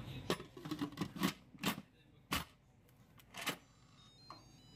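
Instant Pot electric pressure cooker being handled: about seven sharp clicks and knocks in the first few seconds, then near the end a quick run of high electronic beeps stepping up and down in pitch from its control panel.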